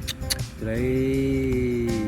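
Background music: a run of quick clicks, then from about half a second in a single long held note that sinks slightly in pitch.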